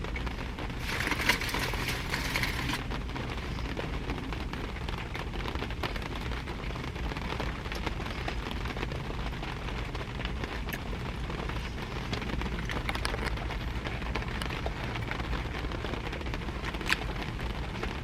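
Rain falling steadily on a car's roof and windows, heard from inside the car. A brief louder rustling noise comes about a second in, and a few light clicks come later.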